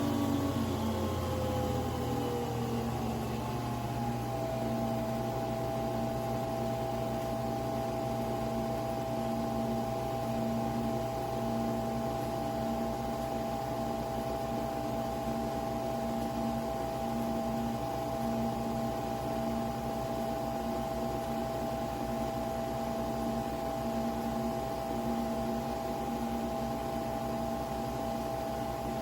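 Nespresso Vertuo Pop+ capsule coffee machine running: a steady mechanical hum and whine whose pitch falls over the first few seconds and then holds steady, with a low pulsing note about every one and a half seconds.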